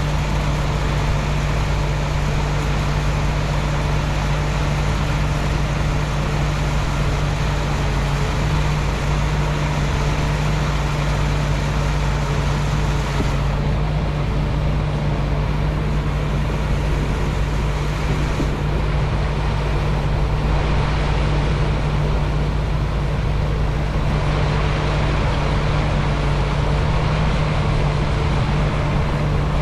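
Engine running steadily with a constant low hum and a wash of mechanical noise.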